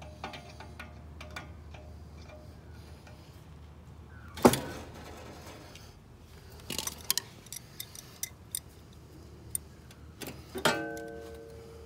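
Hand tools clinking and knocking on the steel front wheel and kingpin of a ride-on mower: scattered light clicks, one sharp knock about four seconds in, a run of small clicks, then a metal clang that rings on near the end.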